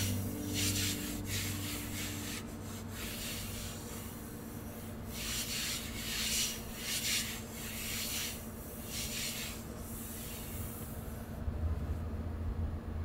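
Repeated rubbing strokes, roughly one or two a second, in two runs with a short pause in the middle.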